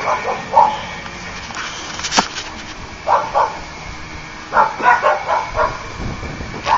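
A dog barking in short bursts: a couple of barks, then a pause, then two barks, then a quicker run of several barks. There is a single sharp click about two seconds in.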